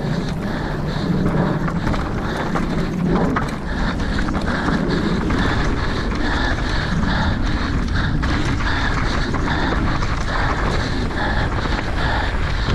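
Mountain bike rolling fast over rough trail with wind noise on the microphone, over the rider's heavy panting, about two breaths a second.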